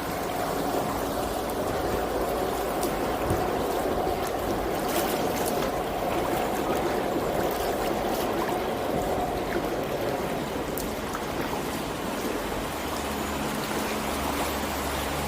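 Water trickling and splashing steadily around a kayak as it is paddled along a canal. A faint steady hum sits underneath, and a lower hum comes in near the end.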